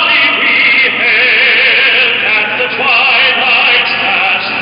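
A singer with strong vibrato performing the national anthem over a stadium's public-address system.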